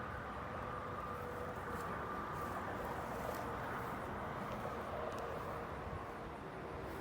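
Steady distant highway traffic noise, an even rumble and hiss with a faint steady hum through it.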